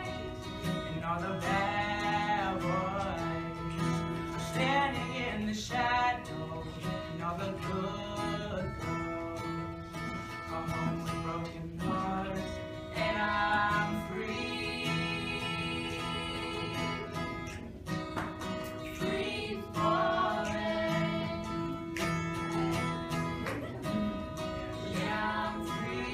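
Acoustic guitar played with a voice singing over it.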